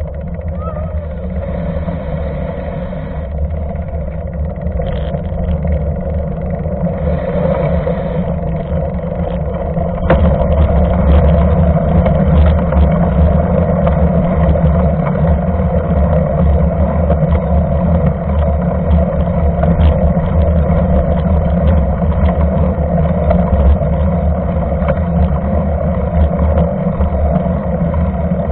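Steady road noise from a mountain bike's knobby front tyre rolling on wet asphalt, heard from a camera mounted right beside the wheel, mixed with wind rushing over the microphone. The noise grows louder about ten seconds in.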